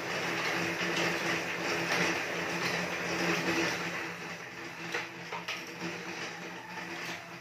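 Home elliptical cross-trainer being pedalled: a steady mechanical whir from its flywheel, easing slightly after about four seconds, with a few faint knocks.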